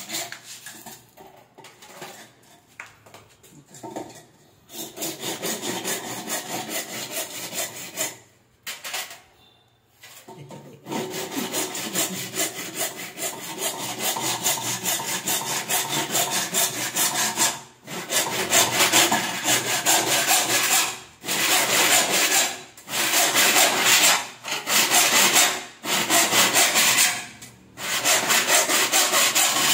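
Hand saw cutting in quick back-and-forth strokes. Faint and halting at first, then steady, with a pause of a couple of seconds about a third of the way in and several short breaks later. The strokes grow louder in the second half.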